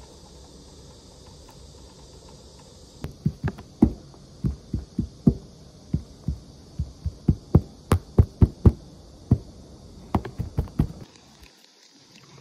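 A hand repeatedly slapping and knocking at a handheld phone, a quick irregular run of sharp thumps on the microphone, about two or three a second. The thumps start about three seconds in and stop abruptly about a second before the end.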